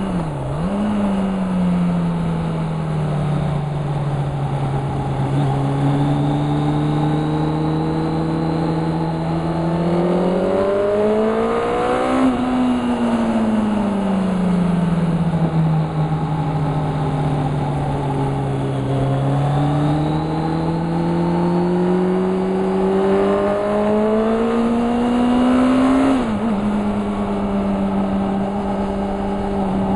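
Car engine heard from inside the cabin at speed on a track, its note rising and falling with the revs. It dips suddenly and recovers right at the start, climbs to a peak about twelve seconds in, falls away slowly, climbs again, and drops suddenly a few seconds before the end.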